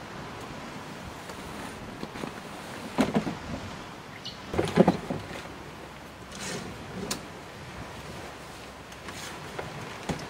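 Clunks, rattles and fabric rustling as a hardshell rooftop tent on a 4x4 is unlatched and raised open by hand, in a few separate bursts with the loudest about halfway through. Steady wind and surf underneath.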